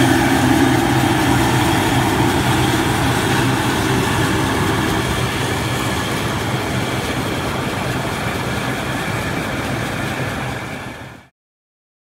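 Claas Lexion 530 combine harvester running as it harvests, a steady mechanical drone with a low engine hum. It grows slowly fainter as the machine pulls away, then fades out quickly near the end.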